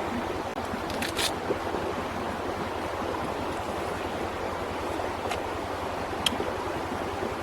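Steady rushing noise, with a few short sharp clicks about a second in and twice more near the end.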